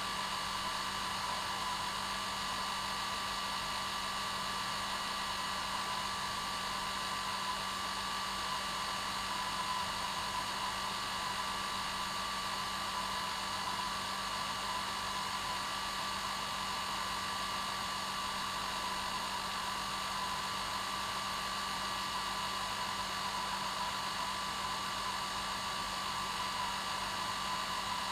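Hair dryer running steadily on its normal setting: an even rush of air with a constant motor hum and whine that never changes.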